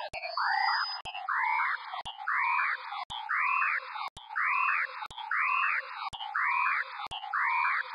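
The vOICe sensory-substitution app's soundscapes: computer-made scans of the camera view of a white plate of breakfast, about one a second, each starting with a click. The bright white plate dominates each scan as a loud swell of many tones in the middle of the sweep, and the pattern repeats with small changes as the view shifts.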